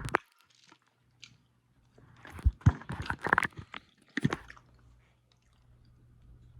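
Close-miked eating: a person biting and chewing fast food, a cluster of short mouth sounds about two seconds in and one more a little after four seconds.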